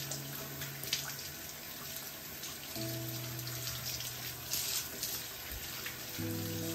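Tap water running into a bathroom sink and splashing as hands rinse and rub a wet cat's fur. Background music with slow held chords plays along, changing chord twice.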